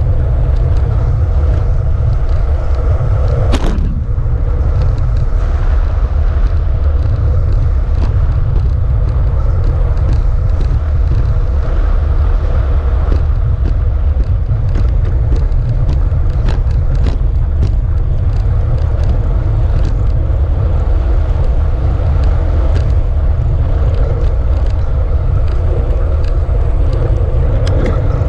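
Steady wind rumble buffeting the microphone of a camera moving along a road, mixed with road noise and scattered light clicks, with one short swish about three and a half seconds in.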